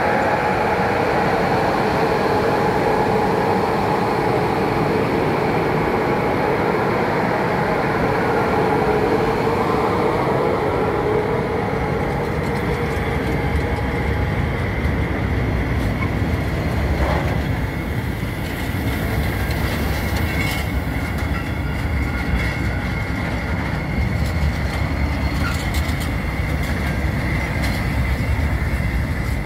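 Heavily loaded electric freight train passing close by. A steady hum from the electric locomotive fades over the first dozen seconds, and then the laden hopper wagons roll past with a steady low rumble of wheels on the rails and a thin, high ringing tone.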